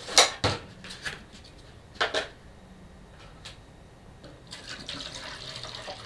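A few sharp knocks as a plastic water jug is handled, then water pouring from it into a clear plastic jar, starting about four seconds in.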